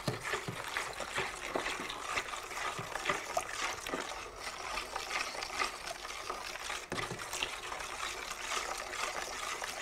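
Wallpaper paste being stirred into cold water in a bowl with an old screwdriver: the thin mix swishes and sloshes steadily, with many light ticks.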